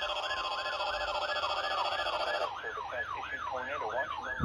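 Electronic yelp siren tone, its pitch sweeping up and down about three times a second. About halfway through the tone turns duller, and a low thump comes right at the end.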